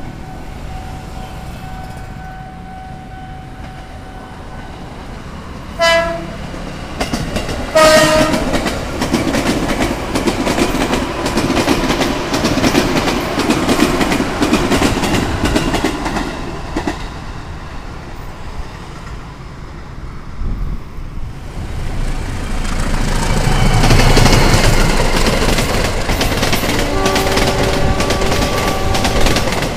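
Two short train horn blasts about two seconds apart, then an electric commuter train passing with a steady rush of wheels on rails. After a lull, a diesel-electric locomotive's engine rumbles louder as it comes past hauling coaches.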